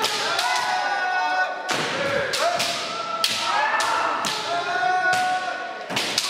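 Many bamboo shinai clacking and striking at an irregular pace during kendo practice, over overlapping kiai shouts from several practitioners, echoing in a large hall.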